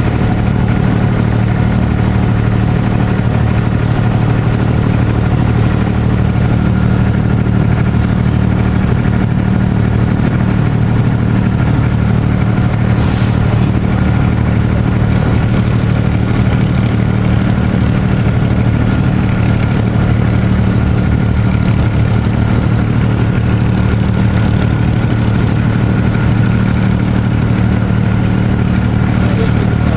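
A boat's engine running steadily while under way, a low, unchanging hum.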